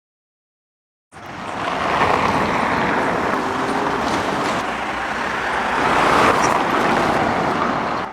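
Rally car at speed on a gravel stage: engine running hard under the rush of tyres on gravel. It starts abruptly about a second in, swells slightly near the end and cuts off suddenly.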